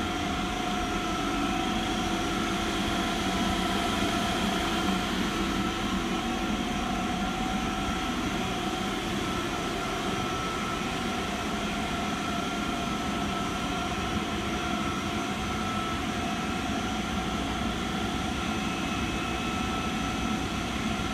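Adicomp WIND 5-500 rotary screw air compressor running steadily, a constant mechanical rush with a steady whine of several high tones over it.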